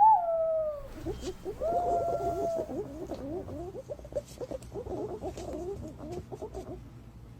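Green pigeon calling: a whistled note that rises and falls at the start, a longer level whistle about two seconds in, then a rapid run of short warbling notes that fades toward the end.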